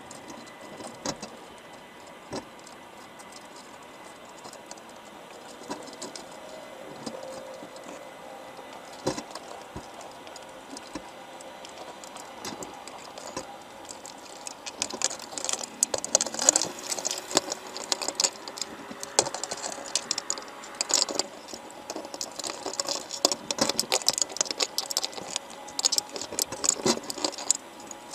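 Underwater clicking and crackling from crabs crawling over each other inside a wire crab trap, their shells and legs knocking together and against the wire. The clicks are sparse at first, then come thick and sharp from about halfway through.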